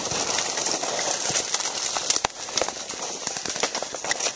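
Crackling rustle of leaves and brush with irregular sharp snaps and clicks as someone pushes through undergrowth.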